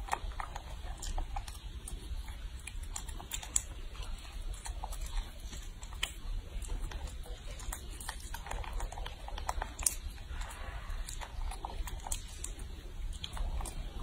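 A baby monkey chewing and smacking on soft food, making irregular small wet clicks, over a steady low hum.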